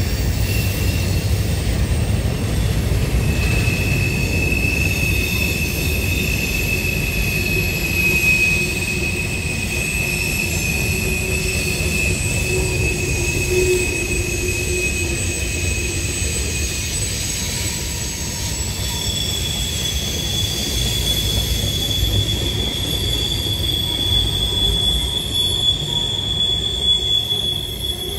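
Freight train of covered hoppers and tank cars rolling past with a steady low rumble of wheels on rail. A high wheel squeal is held from about three seconds in until about seventeen seconds, and a second, higher-pitched squeal starts near nineteen seconds and carries on.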